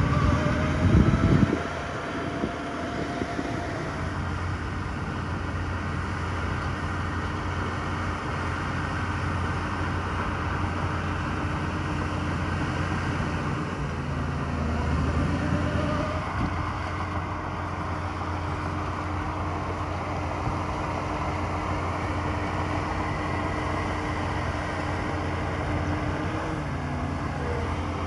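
Diesel engine of heavy earthmoving machinery running steadily with a low hum. There is a louder, rough stretch in the first second and a half.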